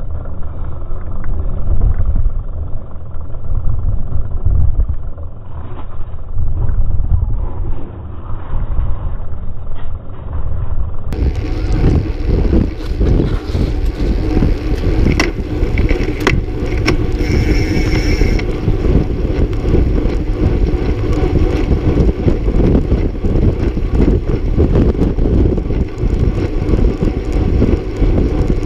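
Wind rushing over an action camera's microphone on a road bike moving with a pack of riders. It sounds dull and muffled for the first eleven seconds or so and then opens up. A few sharp clicks and clatters come a little past the middle.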